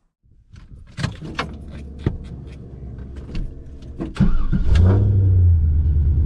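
A few clicks and knocks, then about four seconds in a car engine starts and settles into a steady idle, heard from inside the car.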